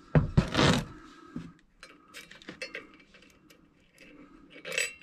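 Metal parts clanking and scraping as an ODES 800's CVT drive variator is taken apart and off its shaft. A loud clatter comes at the start, then scattered light clicks, and a short rattle near the end.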